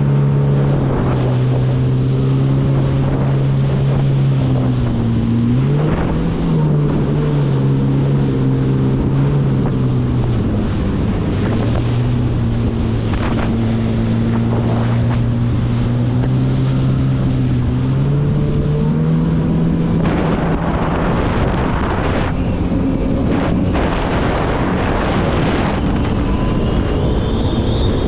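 Jet ski engine running at speed under a steady rush of wind and water. The engine's pitch drops and climbs back several times as the throttle is eased off and reopened.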